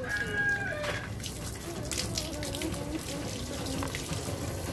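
Water from a garden hose spraying steadily onto a dog's coat and splashing onto wet ground.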